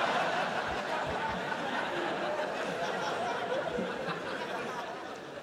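Theatre audience laughing at a punchline, loudest at first and slowly dying down.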